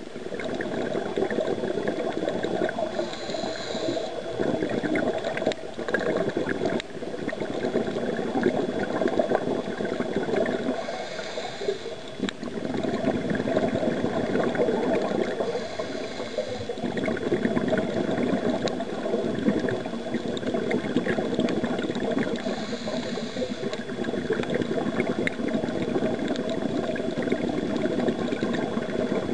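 Scuba regulator breathing heard underwater: a steady gurgle and rush of exhaled bubbles, broken four times by a short hissing inhale.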